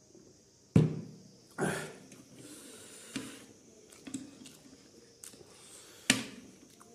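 A metal fork and spoon clinking and scraping on a ceramic plate of noodles, with two sharp knocks, one about a second in and one near the end.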